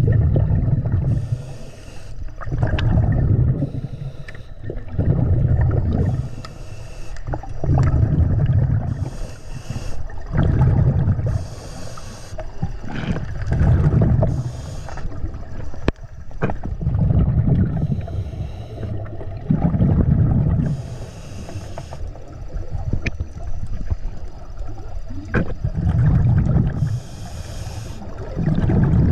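Scuba diver breathing through a regulator underwater: each breath is a short hissing inhale followed by a low rumble of exhaled bubbles, repeating steadily about every three seconds.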